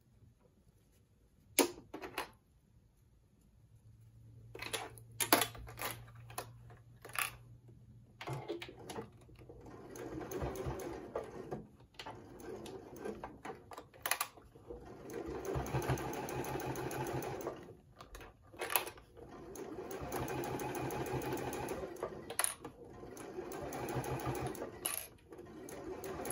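A few sharp clicks in the first seconds as plastic sewing clips are handled. Then a Juki sewing machine stitches through flannel in several short runs with brief stops between them.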